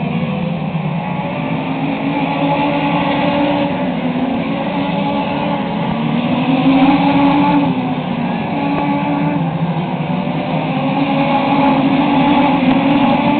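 Several Legends race cars' Yamaha four-cylinder motorcycle engines running together on the track, their engine notes rising and falling as the cars pass and accelerate.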